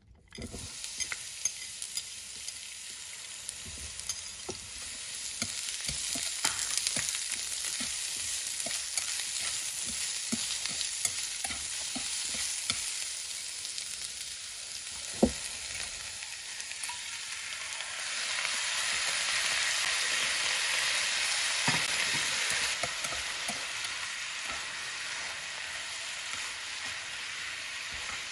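Food sizzling in hot oil in a pan, starting suddenly, while a utensil stirs it and knocks against the pan. A loud knock comes about halfway through, and the sizzle grows louder for several seconds after that.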